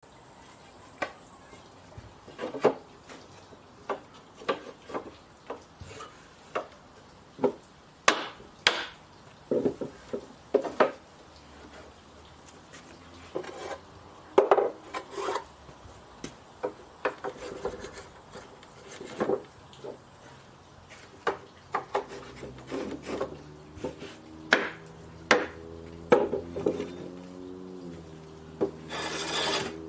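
Irregular sharp wooden knocks and taps on a timber workbench, a second or two apart, as holdfasts are struck with a wooden mallet and boards are set down on the benchtop. Near the end comes a longer rasping scrape of a hand plane across a board.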